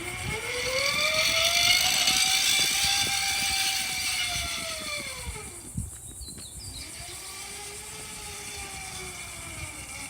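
Zip line trolley wheels rolling along the cable: a whine that rises in pitch as the rider speeds up and falls as she slows over about six seconds. A second, quieter rise and fall follows as she rolls back the other way.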